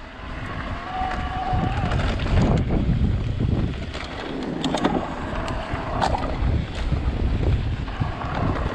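Electric mountain bike riding on rough trail: the Shimano Steps E8000 mid-drive motor whines in waves under hard pedalling, over a heavy rumble of wind on the chest-mounted microphone and tyres on rock, with scattered sharp clicks and knocks from the bike.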